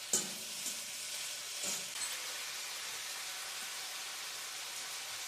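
Saltfish frying in butter in a pot, sizzling steadily, with a few sharp knocks of the stirring utensil in the first two seconds.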